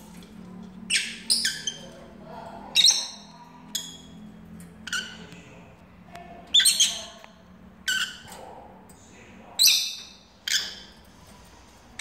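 Lovebirds giving short, sharp, high-pitched calls, about a dozen at irregular intervals, a second or so apart.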